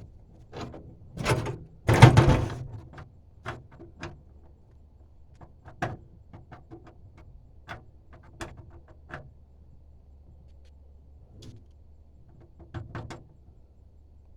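Clicks, knocks and a louder rattling scrape about two seconds in, from metal parts and tools being handled while a propane regulator is fitted into place.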